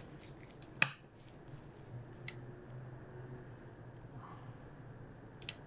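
The flintlock-style lock of an 18th-century English ball-reservoir air gun by Edward Bate being worked by hand: sharp metallic clicks as the cock is drawn back through half cock and full cock and let fall against the frizzen. The loudest click comes about a second in, a smaller one a little after two seconds, and another near the end.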